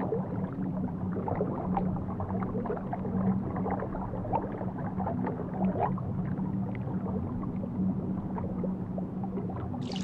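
Underwater reef ambience picked up by the camera: a steady low hum with many faint, scattered crackles and ticks throughout.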